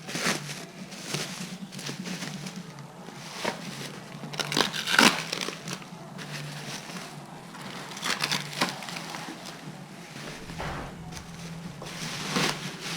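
Packing material crumpling and rustling in irregular handfuls as a fiberglass race fairing is unwrapped, loudest about five seconds in.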